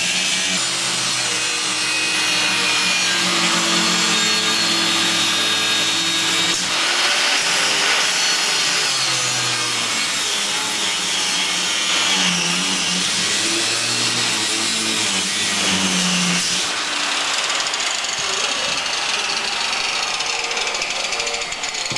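Angle grinder grinding steel, a steady loud hiss of abrasive on metal over the motor's note. The motor's pitch sags and recovers several times as the disc is pressed into the work, and fades out about three-quarters of the way through.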